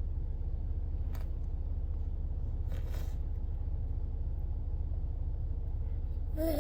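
Steady low rumble with a faint hum and two faint clicks, about one and three seconds in.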